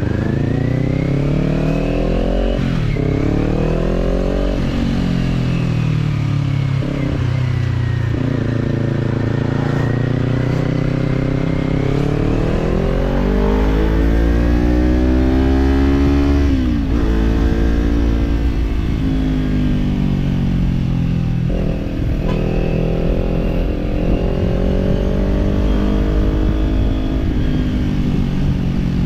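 Kawasaki parallel-twin motorcycle engine with a slip-on exhaust, under way: its pitch climbs under acceleration, drops sharply at several gear changes and sinks as the throttle eases, with low wind rumble on the microphone.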